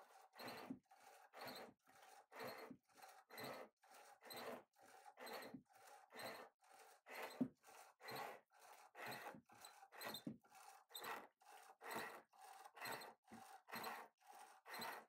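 Turning tool cutting wood on a homemade foot-powered lathe, the piece being turned into a top, in quiet short strokes of about two a second in time with the treadle.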